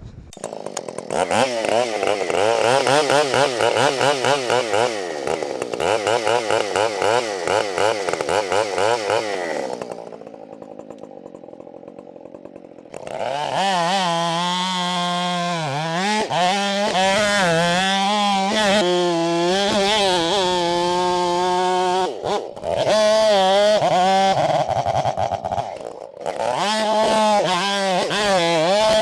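Husqvarna 572 XP two-stroke chainsaw cutting through a large pecan log. It comes up to speed about a second in and runs at high revs with a wavering pitch as it loads in the cut. About ten seconds in it drops to idle for a few seconds, then revs back up and cuts again, with brief dips in speed.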